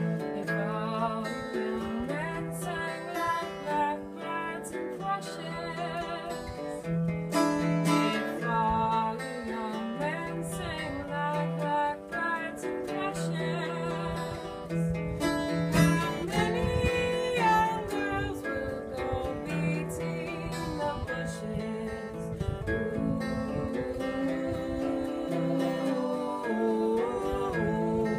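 Acoustic guitar strummed and plucked, with a voice singing a folk-style tune over it.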